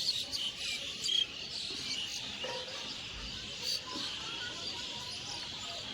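Many small birds chirping and calling together in a dense, continuous chorus of short high chirps.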